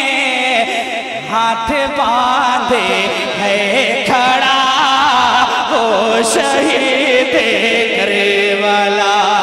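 A man singing a manqabat, an Urdu devotional poem for Imam Hussain, into a stage microphone in long drawn-out notes that bend and glide, with no clear words.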